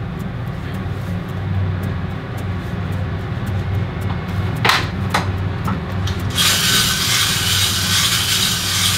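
Kitchen range hood fan running with a steady low hum. About four and a half seconds in come two short sharp clicks as an Iwatani portable cassette gas stove is lit. From about six and a half seconds its burner hisses steadily with the gas flame.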